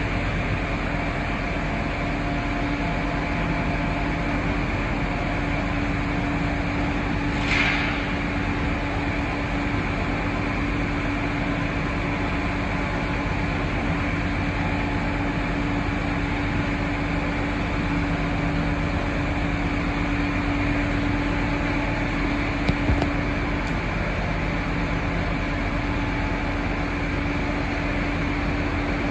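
Blanchard 72HD-120 rotary surface grinder running under power, its large chuck table rotating: a steady mechanical hum with a constant low tone. A brief hiss about a third of the way in and a couple of small clicks later on.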